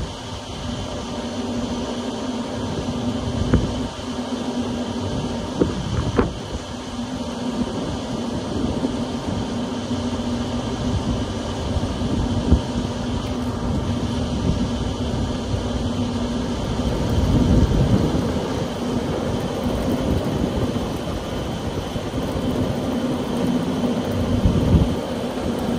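Trane condenser unit's new condenser fan motor running on a test run, the fan blade moving air in a steady whoosh over a steady low hum. A few brief knocks sound along the way.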